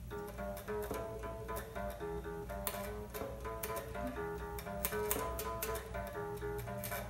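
Squier electric guitar played as a run of short plucked single notes, each with a sharp pick attack, over a steady low hum.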